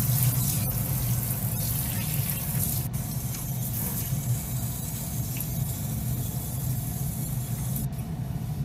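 Tap water running steadily into a stainless steel kitchen sink.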